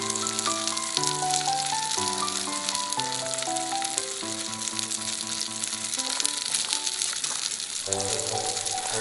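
Chateaubriand steak sizzling and crackling as it cooks over the fire, with background music of slow, stepping held notes playing over it.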